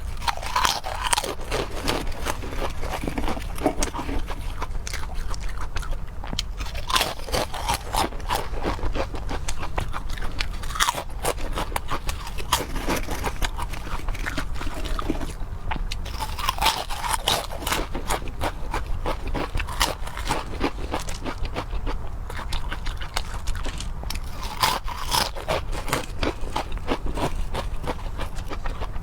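Close-miked eating: continuous chewing with crunching and clicking bites.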